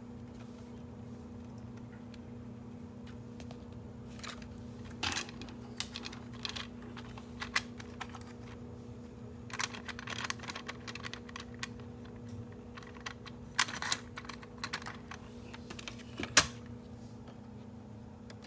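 Irregular light clicks and taps in scattered clusters, the sharpest near the end, over a steady faint hum.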